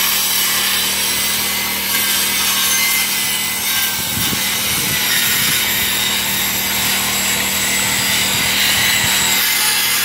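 A machine running steadily: a constant loud, hissing mechanical noise with a low, evenly repeating pulse underneath.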